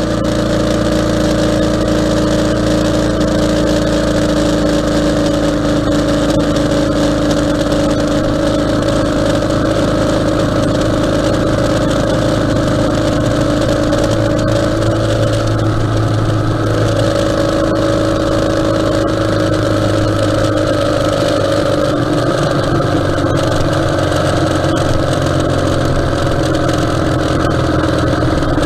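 Ural sidecar motorcycle's flat-twin engine running at steady road speed, with wind and road noise; the engine note shifts slightly lower about two-thirds of the way through.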